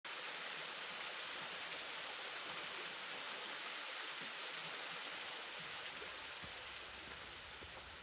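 Small waterfall spilling into a rock pool: a steady hiss of falling and splashing water that fades slightly near the end.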